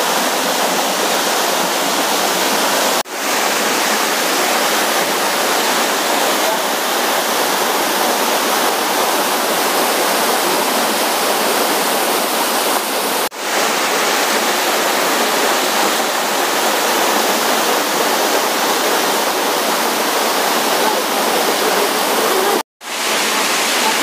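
Waterfall pouring over rock ledges into a pool: a steady, loud rush of water that cuts out briefly three times.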